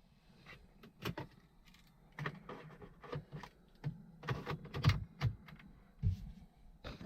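Irregular light clicks, taps and small rattles, a few knocks a second at times, with short gaps between them.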